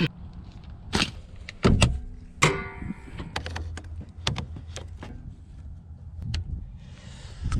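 A tractor's electric starter motor whirring briefly among clicks and knocks, with the cold engine not catching.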